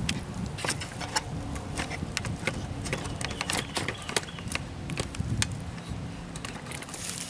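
Shuffling footsteps on dry leaf litter and twigs, with many small crackles and snaps scattered through.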